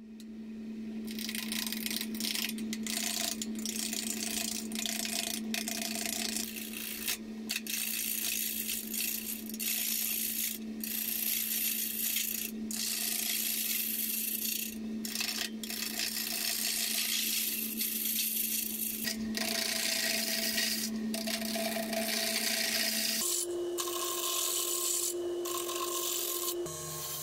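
Wood lathe motor humming steadily while a gouge cuts a spinning boxwood blank, a loud scraping, shaving sound broken by short pauses as the tool is lifted and re-set. Near the end the hum changes pitch and the cutting gets lighter.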